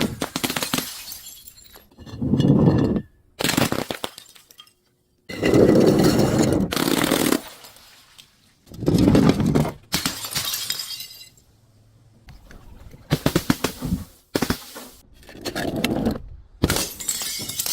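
Glass bottles being crushed and shattering in a run of about eight separate crunching bouts, each lasting up to a couple of seconds, with short pauses between them.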